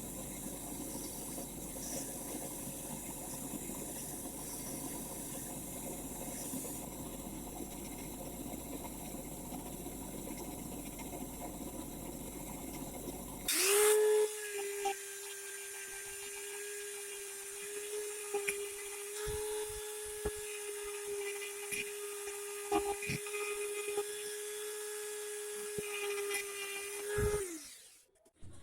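A steady hiss at first, then about halfway through a sudden start and a small high-speed electric power tool runs at a steady whine for about fourteen seconds before stopping, during work on a manual meat grinder.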